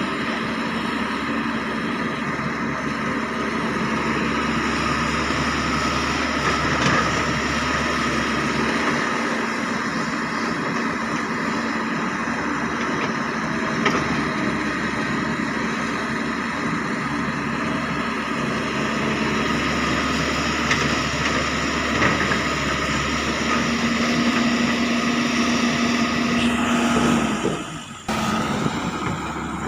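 Excavator engine running steadily, with a steady tone over it for a few seconds near the end before the sound briefly drops out.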